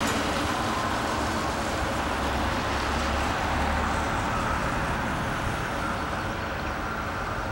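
McDonnell Douglas MD-82's rear-mounted Pratt & Whitney JT8D turbofans at approach power on final approach: a steady rushing drone with a low rumble and a faint whine, easing slightly near the end.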